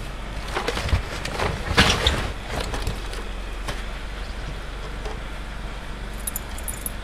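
Scuffing, knocking handling noises of a snowblower being shoved and worked in deep snow, loudest about one and two seconds in, then settling to a steady low background hum.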